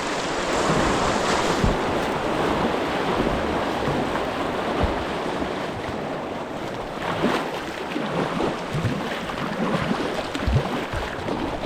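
River current rushing steadily, with a few short splashes.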